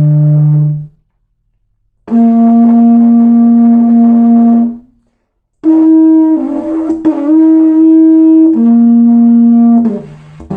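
Slide didgeridoo sounding a series of held notes at different pitches with short pauses between them. A note ends under a second in; a higher note is held for about three seconds; then a higher, wavering, horn-like note steps down about three seconds later and fades out near the end.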